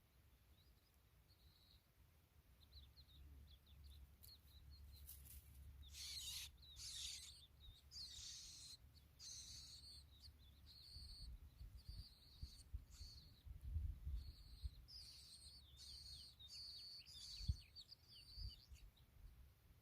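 Skylark calling: a run of short, high chirps, faint at first and then coming thick and fast from about four seconds in, over a low rumble.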